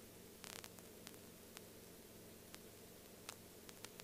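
Near silence: a faint steady low hum with a few scattered soft clicks.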